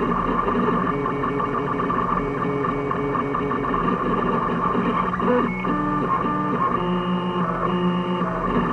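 Home-built 3D printer's stepper motors whining in short held tones that jump between pitches as the print head moves, over a steady hum.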